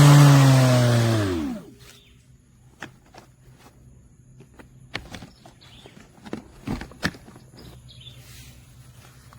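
Cordless brushless electric lawn mower's motor and blade running with a steady hum, then spinning down with falling pitch and stopping about a second and a half in. After that come scattered light clicks and knocks.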